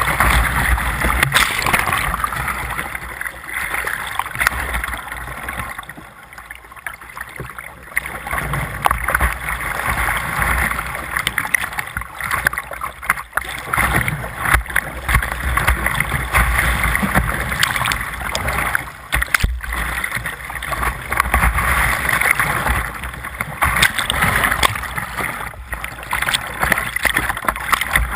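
Whitewater rushing and waves slapping and splashing over a kayak's bow onto a bow-mounted GoPro as it runs a rapid, a dense noisy roar with a low rumble. The noise surges and eases, dropping quieter for a couple of seconds about six seconds in.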